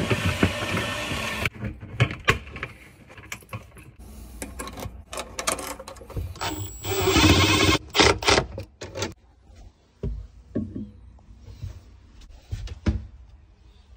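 Gloved hands working flexible metal conduit and electrical wire into a metal box: scraping and rustling with many sharp clicks and knocks. It goes quieter after about nine seconds, leaving only a few clicks.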